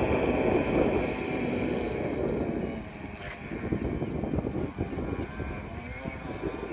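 Electric RC boat running on the water, its motor whining thinly over a steady rushing noise. The sound drops away about three seconds in.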